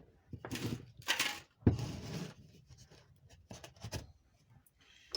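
Metal parts of a vacuum advance unit handled and positioned on a workbench: a few short rustling scrapes and a sharp knock about one and a half seconds in, then faint light clicks.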